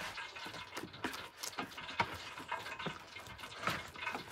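Hands kneading soft flour dough in a plastic basin: irregular soft slaps and squelches, a few a second.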